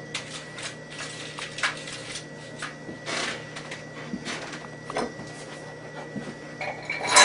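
Crumpled aluminium foil lining a metal baking pan crinkling and rustling in scattered short crackles as silver cutlery is handled in it, with light clinks of the cutlery near the end, over a faint steady hum.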